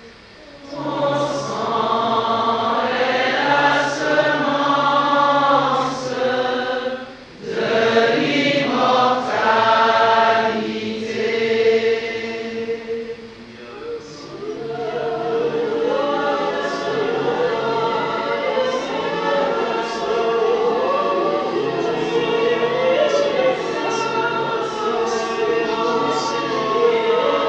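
A group of voices singing a hymn together. The singing breaks briefly about seven seconds in and again around fourteen seconds, then carries on a little softer.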